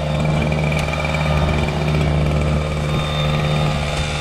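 Petrol engine of a motorised ice auger running steadily at a constant speed.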